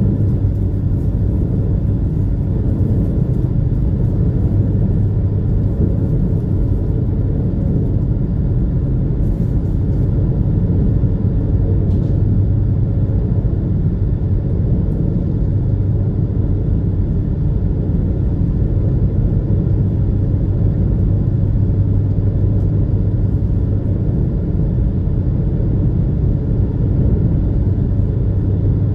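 Steady rumble of a high-speed passenger boat's engines running under way, with a constant low hum that does not change in pitch or loudness.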